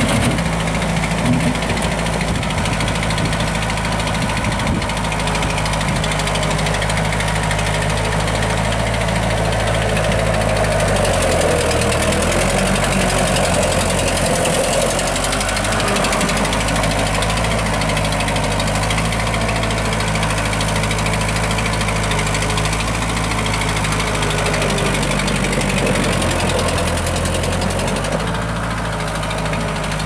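Bobcat 863 skid steer loader's air-cooled Deutz four-cylinder diesel running steadily as the machine drives and manoeuvres, its pitch dipping briefly under load about twelve seconds in and again near the end.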